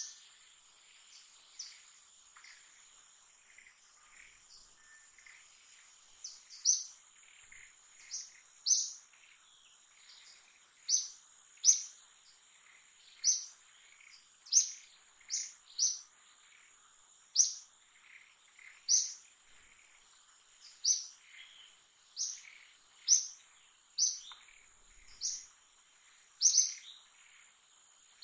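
A bird calling in short, sharp, high chirps, sparse at first and then about one a second from about six seconds in, over a steady high-pitched insect drone.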